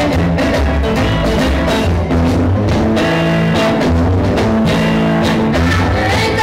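Music with guitar and drums, bass notes held under a steady beat.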